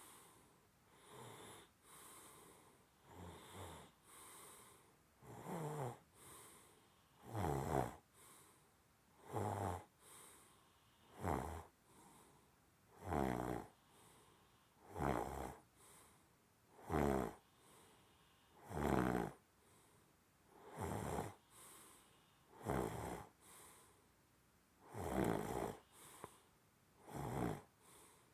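Snoring in slow, regular breaths, one snore about every two seconds, fainter for the first few seconds and then louder.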